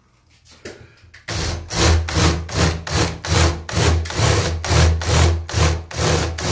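Power drill with an 8 mm bit boring out a 3 mm pilot hole in a patio door frame, starting about a second in: a steady motor hum under a rhythmic grinding pulse about three times a second.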